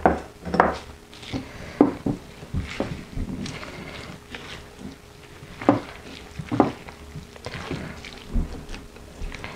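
Silicone spatula stirring spinach leaves into a thick, wet corn batter in a glass bowl: irregular wet squishing and scraping, with a few sharper knocks of the spatula against the glass.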